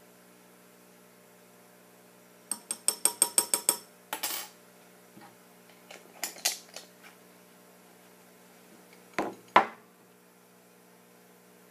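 A spoon clinking against a glass beaker: a quick run of about eight ringing taps, a short scrape, then scattered lighter taps, and two louder knocks near the end.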